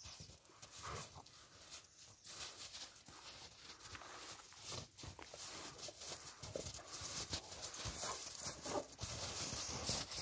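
Large dogs play-wrestling on snow, with irregular scuffling and short noisy bursts as they tussle.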